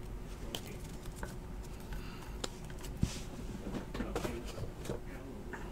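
Faint scattered taps and rustles of trading cards being handled, over a steady low hum.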